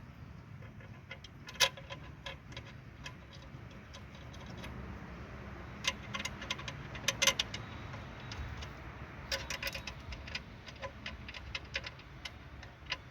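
Scattered sharp metallic clicks and clinks of hand tools and parts being handled, coming in small clusters, over a low steady background hum.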